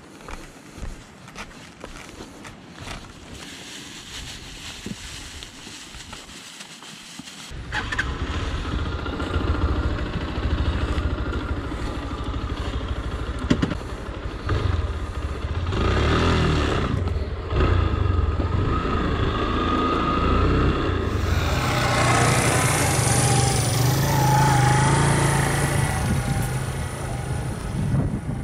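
A motorcycle engine starts about eight seconds in after a few light clicks, then runs loudly, its pitch rising and falling.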